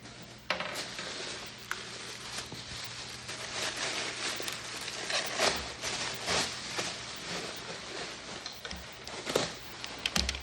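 Packaging being handled, with irregular rustling and crinkling and scattered sharp clicks and knocks.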